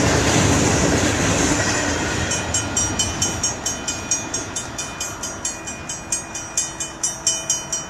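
The tail end of a Utah Railway freight train of hopper cars rolls past, and its wheel and running noise fades away over the first two seconds. After that come light, regular ticks, about three a second, over a thin faint ringing tone as the train draws away.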